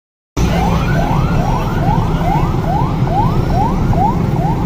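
An electronic siren yelping in quick rising sweeps, a little over two a second, over a steady low rumble of engines and traffic. It cuts in abruptly a moment in.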